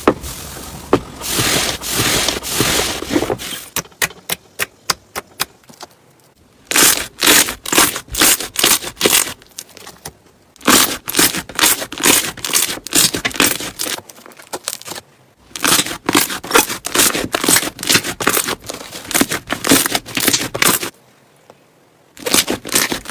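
Thick slime being stirred or worked by hand. Sticky crackling and tearing clicks come in long runs, broken by short pauses.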